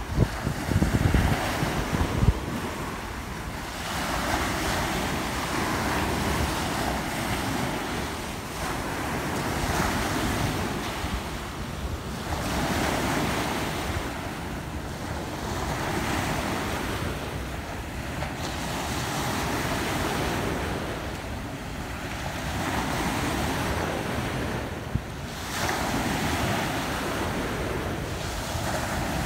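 Ocean surf breaking and washing up the shore, swelling and easing every few seconds. Wind buffets the microphone in the first couple of seconds.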